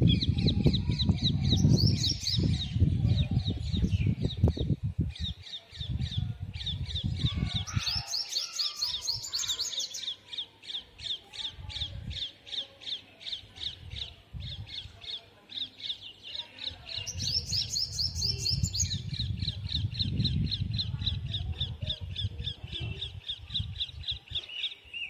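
Sunbird singing: a long, fast run of short, high, chipping notes, several a second, with three brief faster, higher-pitched flourishes.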